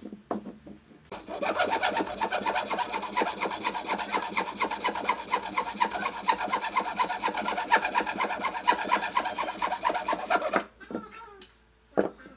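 Rapid, even rasping strokes of a hand tool on wood, several strokes a second, starting about a second in and stopping shortly before the end, with a few light knocks around them.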